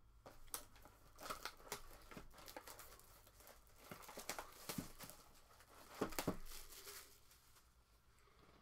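Plastic shrink wrap on a sealed trading-card box being slit with a box cutter and torn off, faint crinkling and tearing in short uneven bursts that die away shortly before the end.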